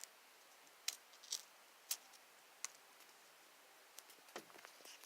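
Faint, scattered clicks and light rustles of small plastic craft pieces being handled, about half a dozen sharp ticks over a quiet room.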